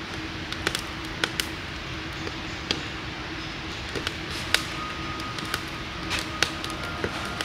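Wood campfire burning in a small metal fire pit, crackling with irregular sharp pops over a steady hiss.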